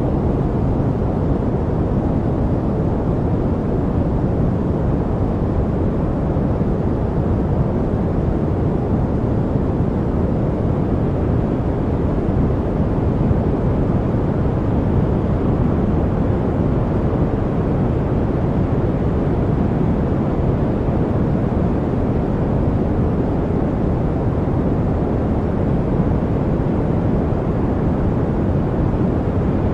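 Steady, unbroken noise of the deep kind, weighted toward low pitches like a rumbling hush, with no changes or events.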